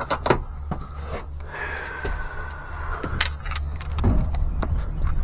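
Metal hand tools and wire hooks clinking and rattling on a van's shelving. A drawn-out, slightly falling squeak comes about a second and a half in, then a sharp click, all over a steady low rumble.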